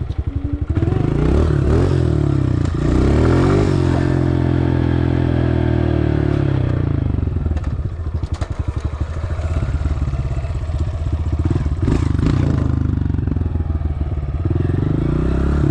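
Dirt bike engine revving. Its pitch rises and falls as the throttle is worked, holds steady for a few seconds, drops about halfway through, then climbs again. A few sharp knocks come a little after the midpoint.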